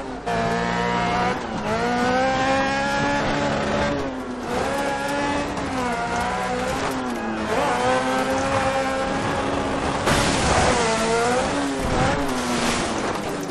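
Off-road cage buggy's engine revving up and down over and over as it is driven hard, the pitch climbing and dropping every second or two. A louder burst of hissing noise comes about ten seconds in.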